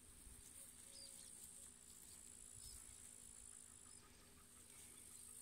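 Near silence: a faint steady high-pitched hiss that stops about four seconds in.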